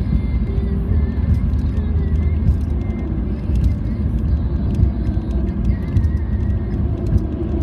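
Steady low rumble of tyre and road noise inside the cabin of a car driving at speed.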